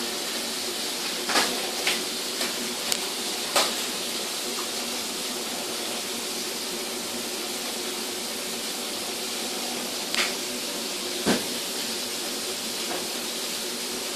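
Steady hiss with a few short, light knocks and clicks: several in the first four seconds, then two more about ten and eleven seconds in.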